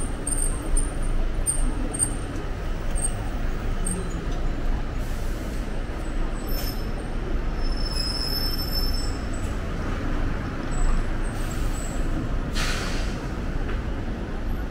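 Street traffic noise: a steady rumble of passing vehicles, with a short hiss late on.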